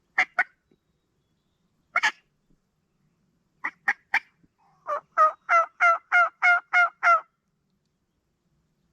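Turkey clucking in a few short, sharp notes, then a run of eight evenly spaced yelps, one note every third of a second or so, ending a little after seven seconds in.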